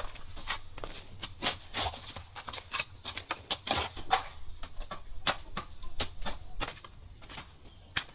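Irregular knocks, taps and clicks, a few a second, thinning out near the end.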